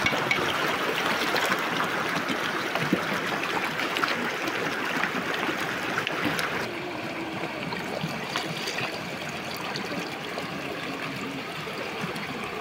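River water flowing, a steady rushing and trickling that drops a little in level about seven seconds in.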